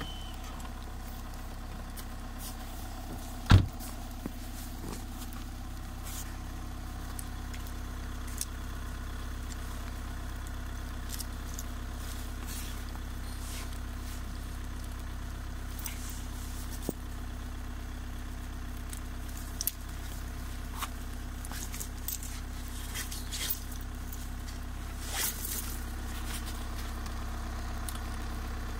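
A car engine idling steadily as a low hum, while the steel links of a snow chain are unhooked and pulled off the tyre with scattered metallic clicks, clinks and scrapes; one sharp knock about three and a half seconds in is the loudest sound.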